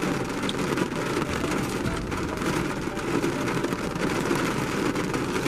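Steady rain falling on the roof and windows of a car, heard from inside the cabin as an even hiss.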